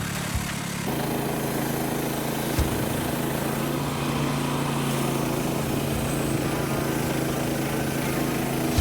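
Small gas engine of a Norwood manual bandsaw mill running at a steady speed, coming in abruptly about a second in and holding one even pitch. A couple of sharp knocks come just before it.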